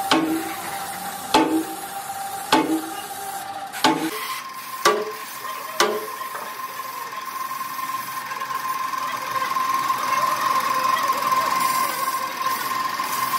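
Air-powered spray gun blasting cleaning fluid onto a hydraulic pump's cast housing: a steady hiss with a whistling tone that steps up in pitch about four seconds in. About six sharp knocks come through in the first six seconds.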